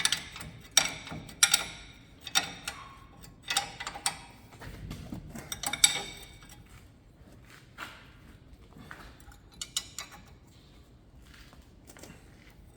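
Metal clinks and ticks from a hand wrench working on a stabilizer link nut as it is tightened on a Chevrolet Spin's front suspension: a string of irregular sharp clinks over the first half, then fewer, fainter ticks.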